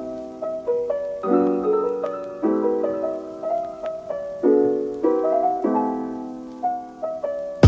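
Background piano music: chords struck every second or so, each ringing and fading.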